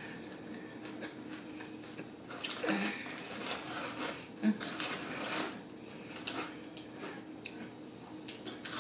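A person eating chicken wings close to the microphone: irregular chewing, mouth and lip sounds and small clicks and rustles from handling the food, over a faint steady room hum.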